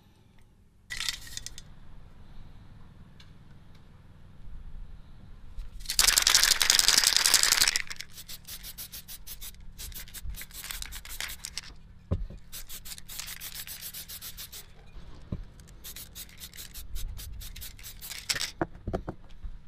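Aerosol spray-paint can hissing in repeated bursts. The loudest is one long steady spray of about two seconds, some six seconds in, and many short quick sprays follow.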